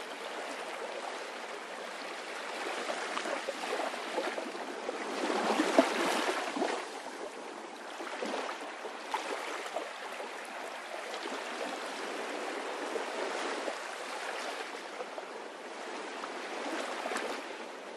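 Water gurgling and trickling in a steady wash, swelling a little about five to seven seconds in.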